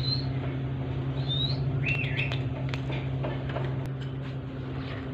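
A parakeet gives a few short chirps, the strongest pair about two seconds in, with a few sharp clicks, over a steady low hum.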